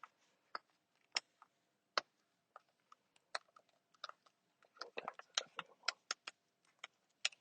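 Backing being peeled off a wall decal: faint, irregular crackles and ticks, coming more thickly about five seconds in.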